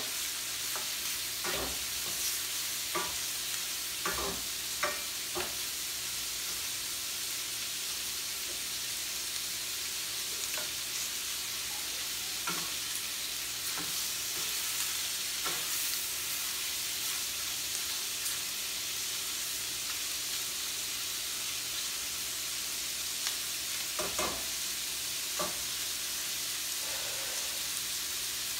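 Shrimp sizzling steadily in two stainless-steel skillets on a gas stove. A spatula clicks and scrapes against the pan now and then as they are stirred, mostly in the first few seconds and again near the end.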